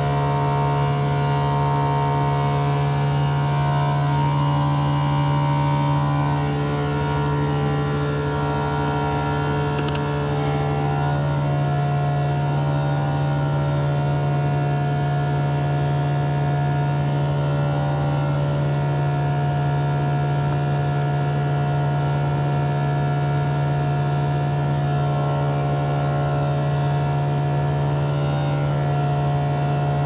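Steady low droning hum with several held tones above it, some of which shift a few times.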